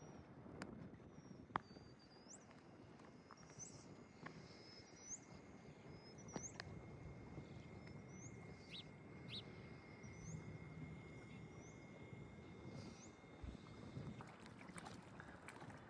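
A small bird chirping faintly, a string of short, high, upward-sweeping chirps about once a second, over a low rumble of outdoor ambience, with a sharp click about one and a half seconds in.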